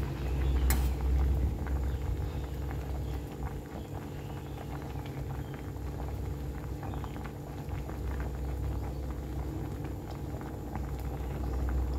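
A pot of vegetable curry bubbling at a rolling boil, with fine popping crackles over a steady low rumble. One sharp clink about a second in.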